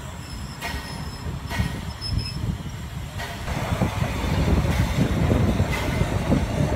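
Swiss E 3/3 steam tank locomotive No. 8518 'Bäretswil' moving slowly, with a steam chuff about once a second. About three seconds in, the sound becomes louder and denser as the locomotive runs close by.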